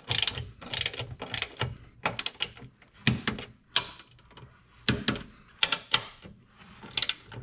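Ratchet wrench clicking in short bursts of a few clicks each, about once or twice a second, as it is swung back and forth tightening the strut bar's mounting nuts.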